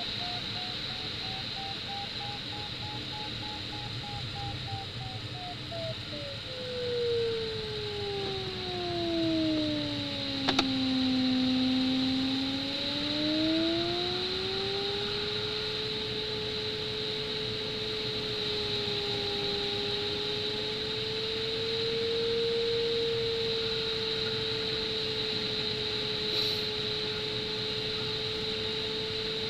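Glider's audio variometer: a beeping tone that turns into a continuous tone about six seconds in, slides down in pitch to a low point around eleven seconds, then rises and holds a steady middle tone, over the steady hiss of air around the canopy. The beeping signals the glider climbing in lift; the continuous falling tone signals sinking air. A single sharp click comes about ten seconds in.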